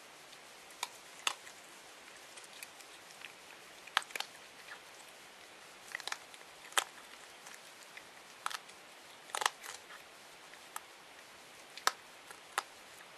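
Masked palm civet chewing dry dog food, with sharp crunches at irregular intervals over a faint steady hiss.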